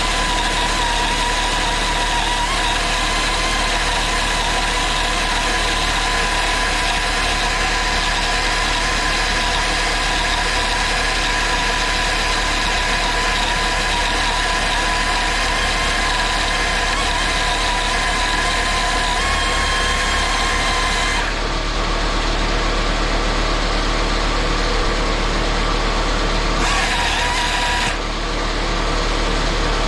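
Air-powered angle grinder running flat out with a steady high whine and the hiss of air, during a run-until-it-fails torture test. Twice near the end the hiss thins out briefly and the whine shifts slightly.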